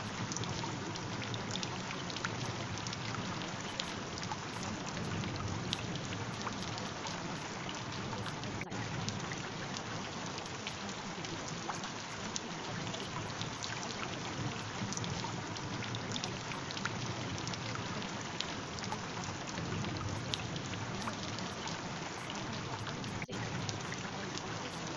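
Steady rain: a constant hiss peppered with many small drop ticks.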